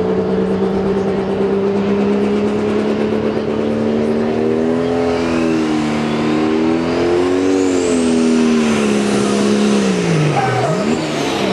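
Turbocharged diesel engine of a super stock pulling tractor running flat out under load during a pull, with a high turbo whistle rising and falling above it. The engine note holds steady, wavers, then pulls down sharply about ten seconds in and picks up briefly before falling again, as the engine lugs down under the sled.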